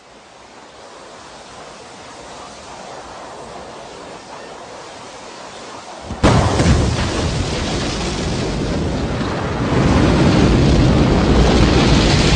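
Rocket launch rumble: a deep noisy roar fades in and builds, turns abruptly much louder about six seconds in, and grows again near ten seconds as the engines run at liftoff.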